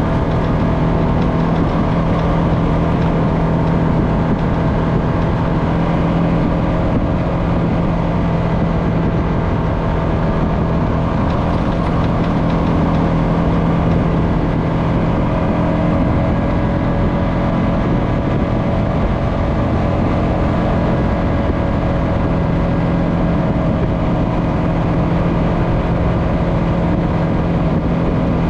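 Honda FourTrax Foreman ATV engine running at a steady cruising speed, a constant even drone with no revving.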